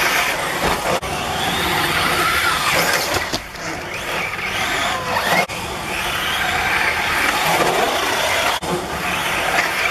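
Small RC off-road cars racing on a dirt track: a high motor whine that repeatedly rises and falls as the cars speed up and slow down, over the rough noise of tyres on dirt. The sound breaks off abruptly three times.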